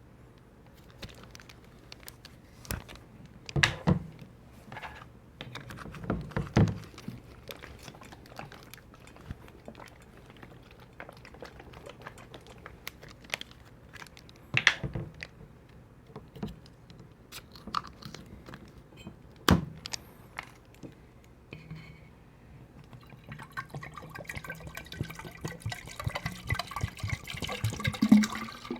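Sikhye, a Korean sweet rice drink, being drunk from a large bottle. A few scattered knocks from handling the bottle come first, then about two-thirds of the way in a quick, steady run of gulping that grows louder toward the end.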